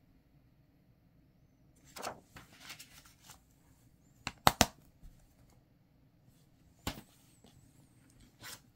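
Plastic DVD cases being handled and set down: a few scattered clicks and clacks, the loudest a sharp double clack about halfway through.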